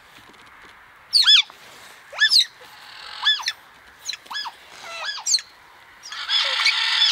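Asian small-clawed otter calling: a series of high, arched chirps about one a second, ending in a louder, denser run of chirping.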